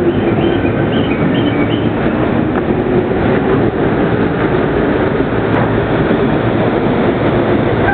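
JR Yamanote Line E231-series electric commuter train drawing into the station platform and coming to a stop, a steady loud rumble of the train.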